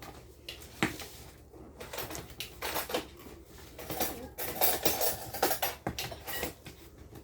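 Irregular light clicks, knocks and rustling as a gift and its packaging are handled and opened.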